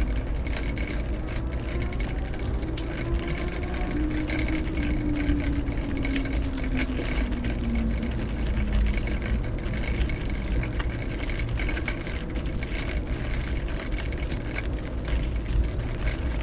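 A motor vehicle's engine passing, its pitch rising over the first few seconds and falling back about eight seconds in, over a steady low rumble of traffic and moving air.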